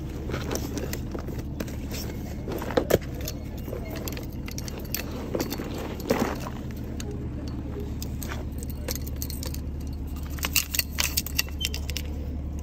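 Scattered clicks, knocks and light metallic rattles of fishing tackle being handled, including metal pliers picked up off a tackle bag, over a steady low rumble. A busier run of clicks comes near the end.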